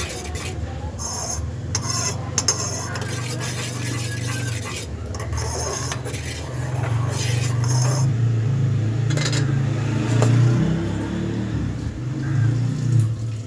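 Metal utensils clinking and scraping against a cooking pan, as milk is heated on a gas stove. Underneath runs a steady low rumble that gets louder about halfway through.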